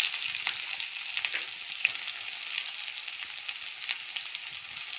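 Chopped onion frying in hot mustard oil with cumin seeds in a kadai: a steady sizzle with many small crackles.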